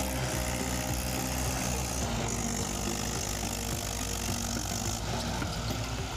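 Mahindra 575 DI tractor's four-cylinder diesel engine running steadily as it pulls a trolley loaded with sugarcane, its note changing about two seconds in.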